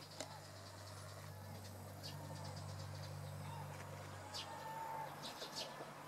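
Eurasian tree sparrows giving short, sharp chirps, scattered and coming thicker near the end, over a low steady hum that fades away about four and a half seconds in.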